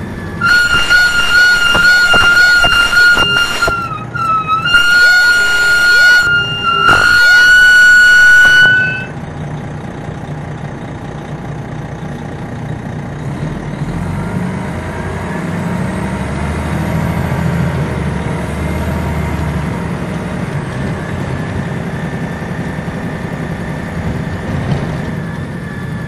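Three long, loud, steady high-pitched horn-like blasts in the first nine seconds, then the Detroit Diesel Series 60 engine of an MCI D4000 coach running with a steady low drone, heard from inside the bus.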